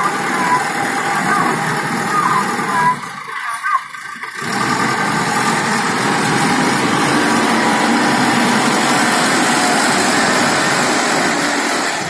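Engine of an AIMIX AS2.6 self-loading concrete mixer running as the machine drives close past, a steady loud noise that sets in after a brief dip about four seconds in.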